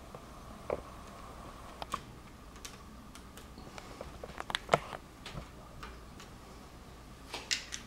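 Small Phillips screwdriver backing out the tiny retaining screws of a laptop screen panel: scattered light clicks and ticks, with a cluster of sharper clicks a little past halfway and a couple more near the end.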